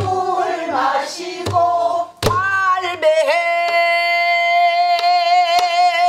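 Woman singing a pansori-style danga, voice wavering through the first half and then holding one long note. She accompanies herself on a buk barrel drum, with two beats in the first half and a couple of lighter strokes during the held note.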